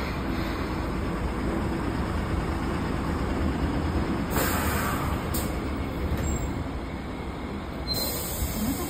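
Toyotetsu route bus running, its engine a steady low rumble, with a short burst of air hiss about four seconds in and another hiss starting near the end.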